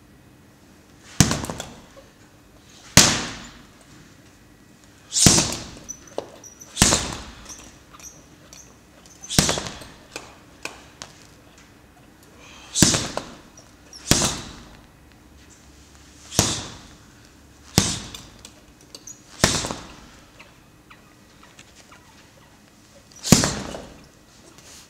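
Gloved punches, lead hooks, landing on a leather heavy bag: about a dozen sharp thuds at uneven intervals of one and a half to three and a half seconds.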